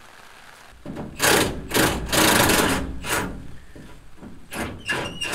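Hand socket ratchet clicking in a series of strokes, the longest about a second, while a rear leaf spring bolt is worked loose. There is a brief high squeak near the end.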